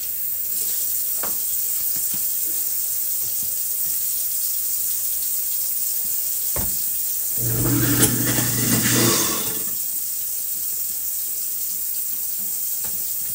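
Kitchen faucet running water into the sink. About seven seconds in, after a click, a garbage disposal runs with a low hum for just under two seconds, the loudest sound here.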